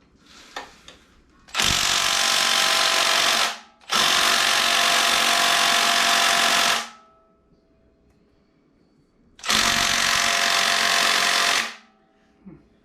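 Impact wrench hammering on an engine bolt in three long bursts of two to three seconds each, with pauses between, without breaking the bolt loose.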